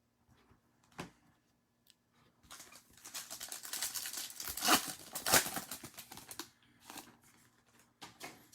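A foil trading-card pack being torn open and its wrapper crinkled: about four seconds of tearing and rustling, after a single sharp click about a second in.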